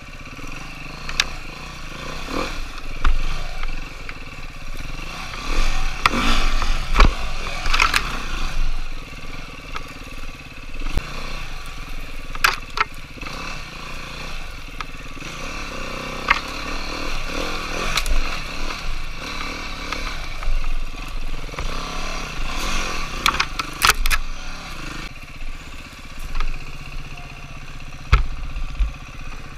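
Dirt bike engine being ridden, its revs rising and falling unevenly, with repeated sharp clatters and knocks from the bike over rough trail.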